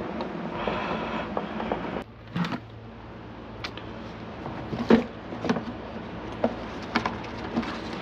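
For about two seconds, a steady rasping as a screwdriver turns a screw into the plastic end cap of a Viking 720 (Electrolux) canister vacuum. It stops abruptly and is followed by scattered clicks and knocks of hard plastic parts as the end cap is fitted onto the vacuum body, the loudest knock about five seconds in.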